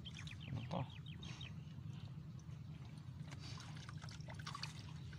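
Water dripping, trickling and lightly splashing as a wet gill net is hauled up out of the lake by hand. A quick run of short falling chirps sounds near the start, over a steady low rumble.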